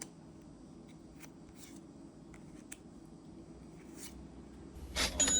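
Magic: The Gathering trading cards being handled and flipped through: faint scattered clicks and rustles, then a louder brief rustle near the end.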